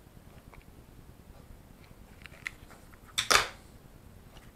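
Small plastic clicks from a hot glue gun being worked over a radio controller's circuit board. A sharp double clack about three seconds in is the loudest sound.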